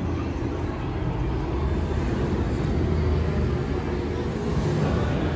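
A steady low rumble with a faint steady hum above it.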